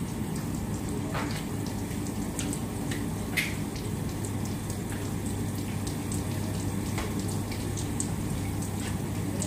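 A steady low mechanical hum with a faint rumble, with a few short clicks and knocks over it as a door is opened and a plastic laundry basin is handled.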